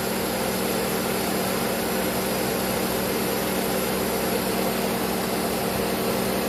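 Honda Fit's i-DSI engine idling steadily with the air conditioning switched on, under electrical load during a charging-voltage test.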